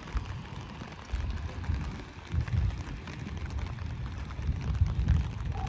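Light rain pattering in fine, steady drops, over an irregular low rumble that swells and fades a few times.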